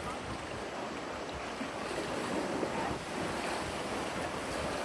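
Steady rush of surf and moving water, with wind buffeting the microphone.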